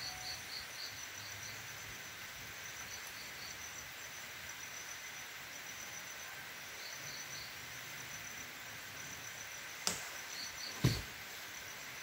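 Insects chirping steadily in a rural background, in short repeated pulse groups, with two sharp knocks about a second apart near the end, the second a heavier thump.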